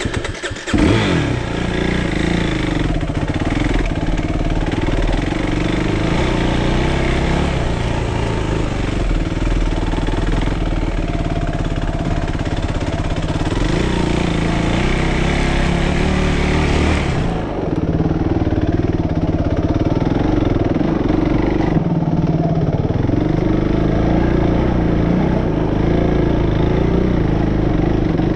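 Suzuki RMX450Z single-cylinder four-stroke dirt bike engine running under way on a rough trail, its pitch rising and falling with the throttle.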